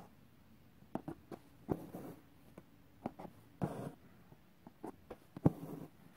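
Embroidery needle piercing cotton fabric stretched in a hoop and thread being pulled through while fishbone stitches are worked: irregular soft clicks and a few short scratchy swishes.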